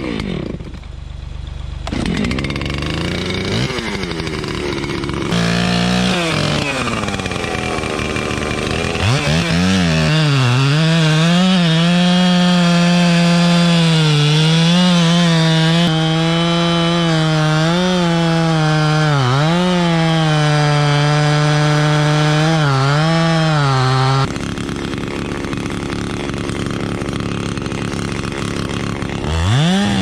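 Gas chainsaw cutting into a fallen pine log, run at full throttle with the engine speed dipping again and again as the chain bites. About 24 seconds in it drops back to idle, then revs up again just before the end.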